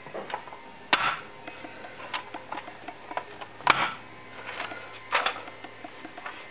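Hard plastic car interior trim being handled and its parts pressed into place: a few sharp knocks and clicks, the loudest about a second in and near four seconds, with lighter ticking and rustling between.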